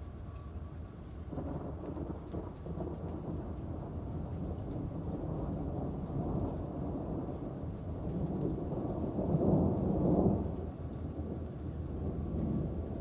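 Rolling thunder over steady rain: a low rumble builds about a second and a half in, swells to its loudest near the ten-second mark, then fades back.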